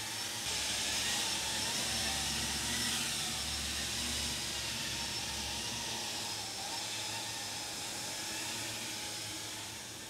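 FPV quadcopter on eight-bladed 3D-printed propeller hubs with DalProp Fold 2 F7 folding blades, hovering at about half throttle: a steady whirring hiss with a faint whine, slowly fading as it moves farther off. The props are running with some vibration, by the pilot's account.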